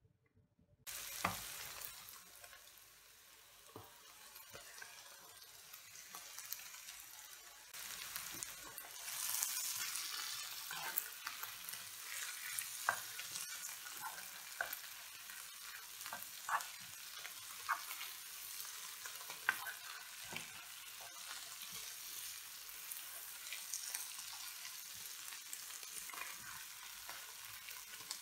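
Sliced onions and green and red peppers sizzling in a nonstick frying pan, starting just under a second in, while a wooden spoon stirs them with scattered short taps and scrapes against the pan. The sizzle gets louder about eight seconds in.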